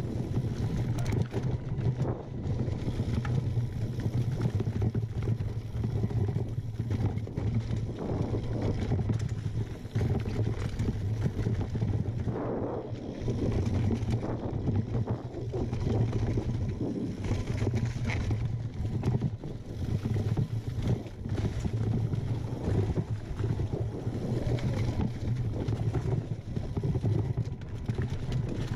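Mountain bike ridden over rocky singletrack: a constant low rumble from the tyres and frame, broken by frequent short clatters and rattles as it rolls over rocks and roots.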